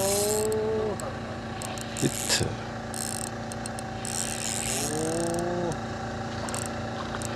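Spinning reel being wound in against a hooked hairtail, over the steady hum of the boat's engine. Two drawn-out rising moans from a person, one at the start and one about five seconds in, with a couple of sharp clicks about two seconds in.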